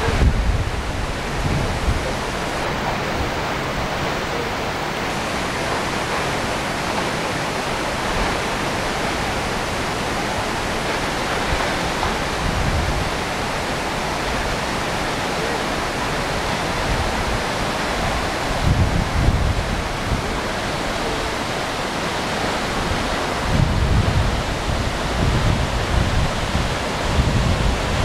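Tall waterfall plunging onto rock, a steady rushing roar of falling water. Wind buffets the microphone in low gusts about two-thirds of the way in and again near the end.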